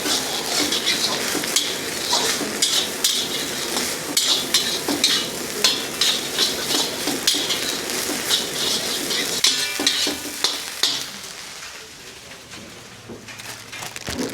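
Street-food stir-fry in a wok: food sizzling in hot oil, with the metal ladle scraping and knocking the wok a little more than once a second. It dies down about eleven seconds in.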